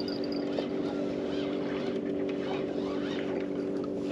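A motorboat engine running steadily with an even hum.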